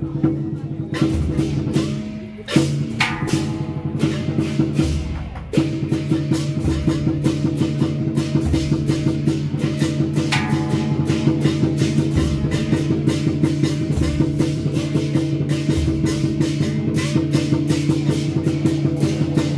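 Dragon-dance percussion music: drumbeats and sharp wood-block-like clicks over sustained low tones. It is uneven at first, then settles into a fast, even beat about five and a half seconds in.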